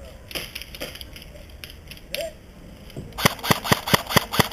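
D-Boys KAC PDW airsoft electric gun firing about six quick single shots, about five a second, in the last second and a half. Before them come a few lighter clicks and knocks.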